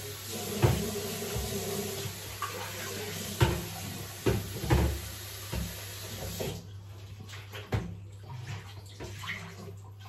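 Used cat litter poured out of a tilted plastic litter tray: a steady granular rush with a few knocks of the tray, cutting off about six and a half seconds in. A few light clicks and taps of the tray follow.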